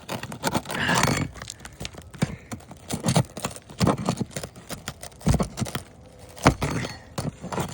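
Pry bar scraping and knocking against asphalt shingles and a stubborn roofing nail as it is worked loose: irregular clicks and scrapes, with a sharper knock near the end.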